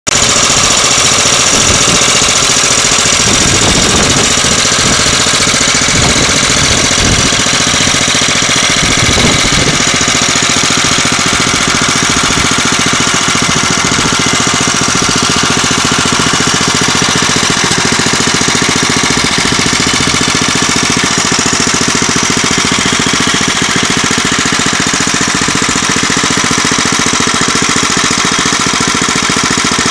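Freshly rebuilt Norton Villiers F12 small stationary engine running steadily at a low idle, with a rapid even firing beat. A few harder, uneven knocks come in during the first ten seconds before it settles.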